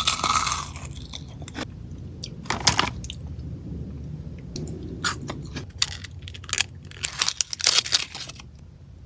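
Ferrero Rocher chocolates being bitten and chewed: several crisp crunches a couple of seconds apart, with quieter chewing between them.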